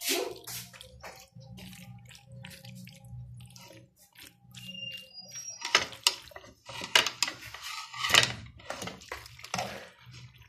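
A metal spoon stirring wet macaroni in a metal pan. It is soft and quiet at first, then gives several sharp scrapes and clinks against the pan in the second half.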